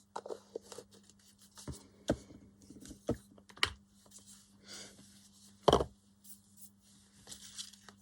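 Paper rustling with a scatter of light taps and clicks from handling craft papers and a sticker on a work table, with one louder knock about six seconds in, over a faint steady hum.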